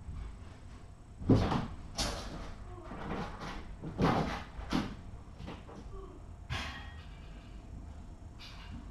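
A series of separate knocks and thuds, about eight over several seconds, the loudest a little over a second in, as of a cupboard door or other household objects being handled.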